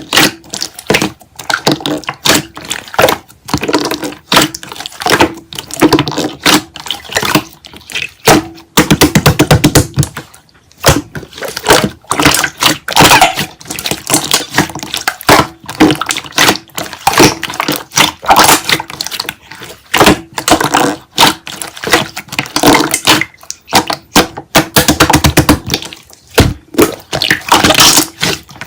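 Slime being squeezed and poked by hand, making a dense, irregular run of sticky clicks, pops and squelches.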